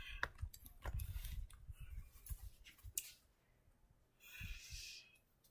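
Faint handling noise from a camera being adjusted up close: low bumps and rumbling on the microphone for the first few seconds, then a sharp click, a moment of quiet and a short rustle near the end.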